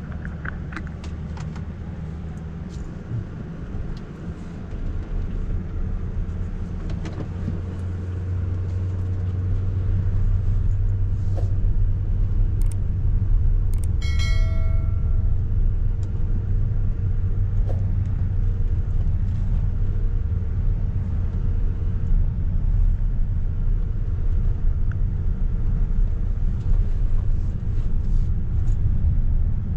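Road and tyre rumble heard inside the cabin of a moving Tesla Model X 100D electric SUV, growing louder over the first ten seconds and then steady. A brief chime sounds about halfway through.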